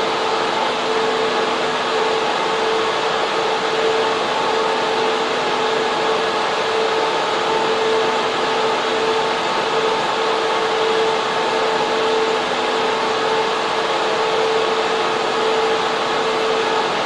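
Data center server room: many server cooling fans and air-cooling units running steadily, a loud even rush of air with a constant mid-pitched whine on top.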